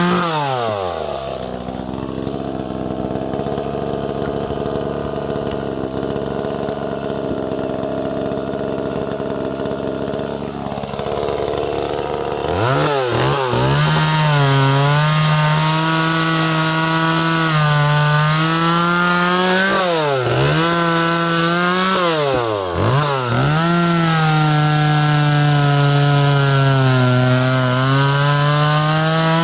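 Small 30cc Echo two-stroke chainsaw dropping from full throttle to idle, idling for about eleven seconds, then revved up to high speed and cutting wood, its pitch sagging under load and twice dipping sharply and recovering before it eases off near the end.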